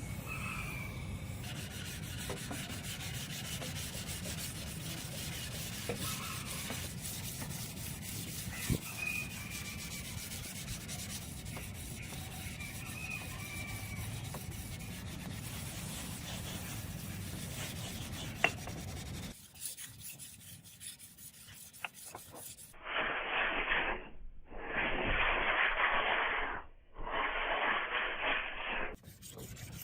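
Hand abrasive work on iron, rubbing back and forth in a steady scraping noise, then three longer, louder strokes near the end.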